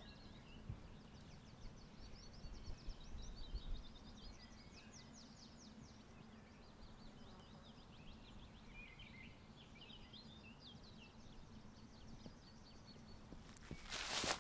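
Faint birdsong, with rapid runs of short high chirps from several birds. Just before the end, footsteps begin on grass at a steady walking pace.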